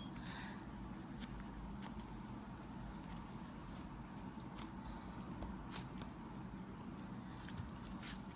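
Slime being kneaded and mixed by hand: faint squelching with small, irregular clicks and pops.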